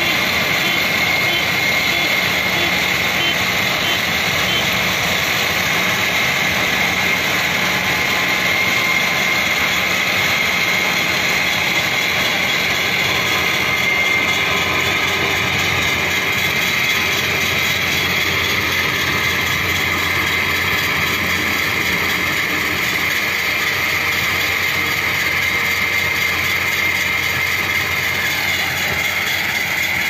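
Rice combine harvester running steadily as it cuts and threshes standing rice: a constant engine and machinery din with a steady high whine.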